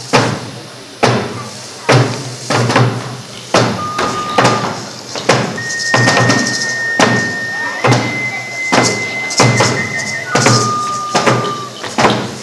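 Traditional deer-dance music: a flute holding long, steady notes that step between a few pitches, over slow, uneven drum beats about once a second.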